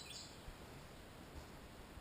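Faint outdoor ambience with a brief high bird chirp right at the start.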